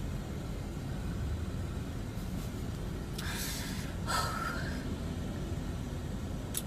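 Steady low background rumble, with two short, noisy breaths from a person about three and four seconds in, the second with a faint whistle through the nose, and a brief click near the end.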